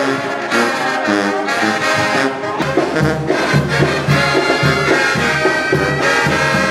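Mexican brass band (banda) playing an instrumental passage, with trumpets and saxophones in chords. The sousaphone and drums come in with a steady beat about two and a half seconds in.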